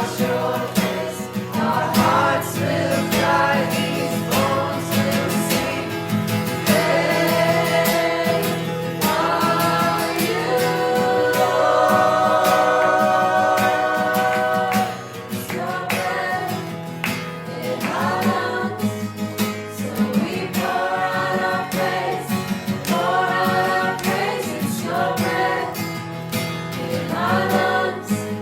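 Worship song sung by several voices over instrumental accompaniment, with long held notes.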